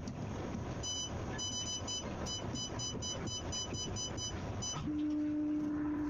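Sawmill log-handling machinery running with a steady low rumble, overlaid by quick clusters of short electronic warning beeps. About five seconds in, a steady low buzzing tone starts and holds.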